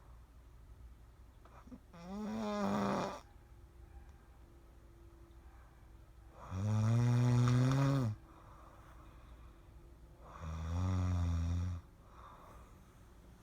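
Slow, steady snoring: three drawn-out snores about four seconds apart, each lasting a second or so.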